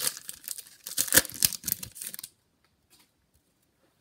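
Wrapper of a Bowman baseball card pack being torn open and crinkled, a crackly rustle lasting about two seconds that then stops suddenly.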